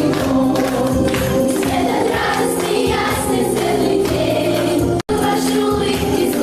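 A class choir singing along to a backing music track. The sound cuts out completely for an instant about five seconds in.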